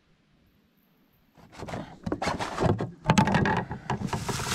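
After about a second and a half of near silence, irregular rustling, knocks and scrapes as a hand rummages inside a kayak's round deck hatch, among a plastic bag and a plastic tub.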